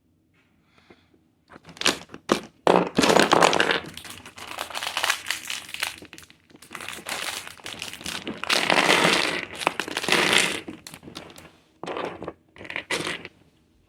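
Lego pieces being handled: irregular bursts of plastic rustling and clattering, with two longer spells of continuous rummaging and a few short bursts near the end.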